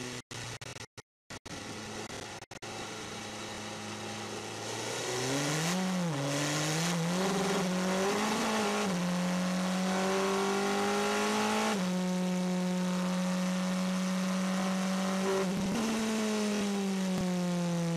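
Onboard sound of the Toyota TS040 Hybrid racing prototype's V8 engine at speed. The sound cuts out briefly a few times near the start. The pitch then rises and dips through a sequence of corners, climbs under acceleration until a gear change about twelve seconds in, and falls near the end as the car slows.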